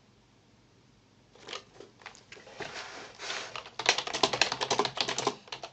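Typing on a computer keyboard. The first second or so is quiet, then a fast run of key clicks starts, thickest in the last couple of seconds.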